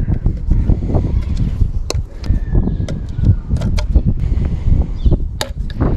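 Handling noise of a plastic timing belt cover and a pair of pliers: several sharp clicks and knocks over an uneven low rumble.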